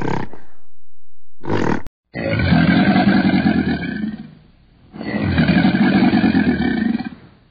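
Two short gorilla calls in the first two seconds, then a crocodile's low, rough growl, twice, each about two seconds long.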